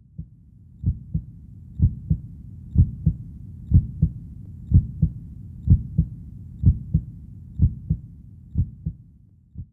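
Heartbeat sound effect: paired lub-dub thumps about once a second over a low steady rumble, fading away near the end.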